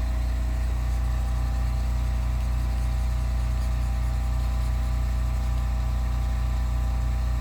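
Steady low hum of a running machine, even throughout, with a constant set of held tones above it.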